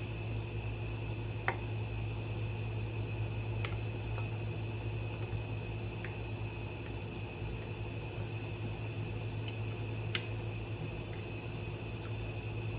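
Quiet eating: chewing with a few sharp clicks of mouth or cutlery, over a steady low hum.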